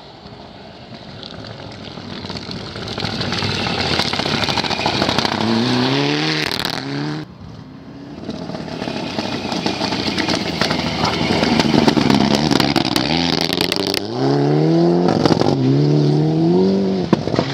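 Mitsubishi Lancer Evolution rally cars' turbocharged four-cylinder engines passing at full throttle on a gravel stage, one after the other. Each revs up with a rising engine note, broken by quick gear changes, amid sharp crackles.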